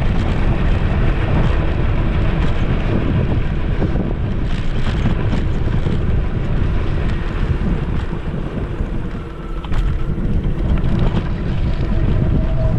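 Steady wind rumble buffeting the microphone of a GoPro clamped to a moving electric scooter, with a short lull about nine seconds in.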